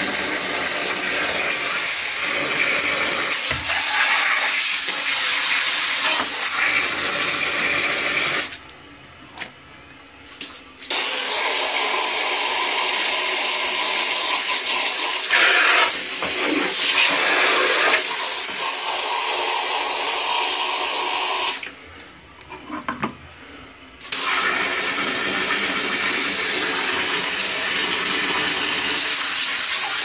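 Water spraying from a hand-held hose nozzle onto a basin and the plastic parts of a vacuum cleaner, a steady hiss and splash that stops twice for about two seconds before starting again.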